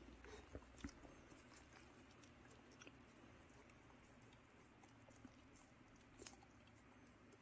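Faint sounds of dogs chewing and licking steamed sweet potato off a hand: scattered soft clicks and smacks, a couple of the clearer ones about a second in and another near the end.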